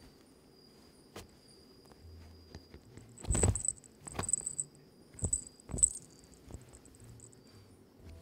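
A kitten and a dog play-fighting, heard as a few short bursts of scuffling and pattering in the middle, with quiet stretches between.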